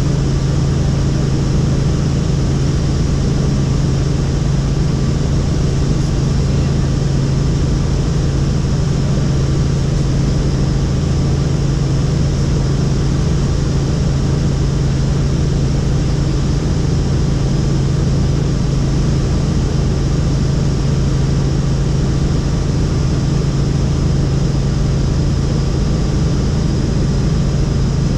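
Helicopter in flight: a loud, steady drone of rotor and engine with a strong low hum.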